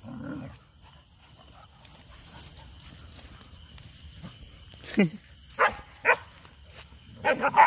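Dogs play-fighting, giving short yelps and growl-like calls: one falling in pitch about five seconds in, two more soon after, and a quick cluster near the end. A steady high buzz of crickets runs underneath.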